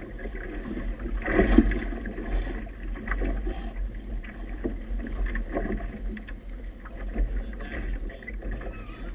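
Choppy water splashing and slapping against a small boat's hull in irregular surges, the biggest about a second and a half in, over a steady low rumble of strong wind on the microphone.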